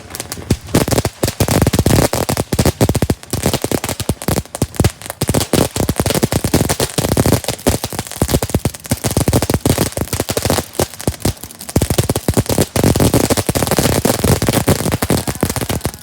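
Consumer fireworks crackling: a dense, rapid stream of sharp pops and crackles that starts suddenly and cuts off at the end.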